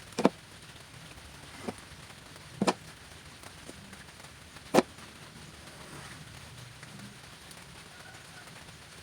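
Four sharp knocks of parts being handled during assembly of an electric air compressor, the second one fainter, all within the first five seconds.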